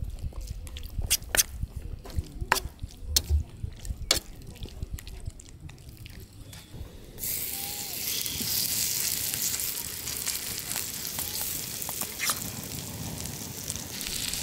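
Sharp clicks and taps, then, about halfway through, kimchi pancake batter starts to sizzle in a hot oiled pan, a steady frying hiss.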